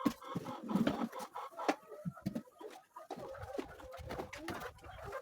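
A flock of laying hens clucking, with scattered short knocks and clicks.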